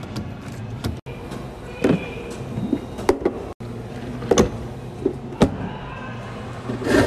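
A plastic blender pitcher and the blender's sound-enclosure lid being handled, giving several sharp clacks and knocks. Near the end the commercial blender starts up with a rush of noise.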